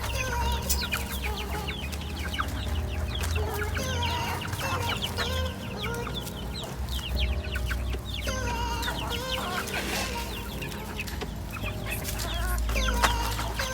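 A flock of free-range chickens clucking, many short calls overlapping, over a steady low rumble.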